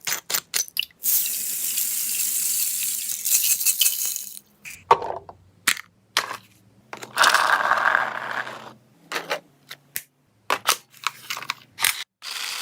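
Toy gun smoke silencer spraying: a few sharp clicks, then long hissing spurts of vapour over a faint low hum, with more short clicks and hisses near the end.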